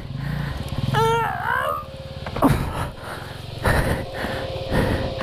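Single-cylinder KTM 690 Enduro engine idling with a fast, even low pulse. About a second in comes a short rising-and-falling vocal strain, and a couple of sharp knocks follow as the bike is handled.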